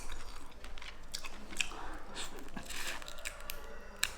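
A person chewing and biting into braised lobster tail close to the microphone, with irregular wet clicks and smacks of the mouth.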